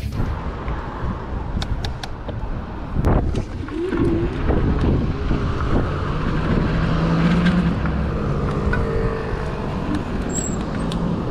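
City road traffic and wind rumbling on the microphone of a slow-moving electric scooter, with scattered clicks and a few short steady hums.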